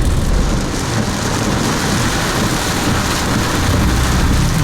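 Heavy storm rain and wind: a steady loud rush with a low rumble underneath.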